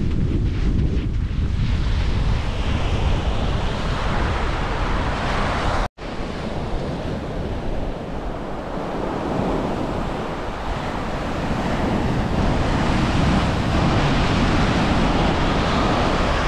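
Ocean surf washing onto a beach, with wind buffeting the microphone. The sound cuts out for an instant about six seconds in.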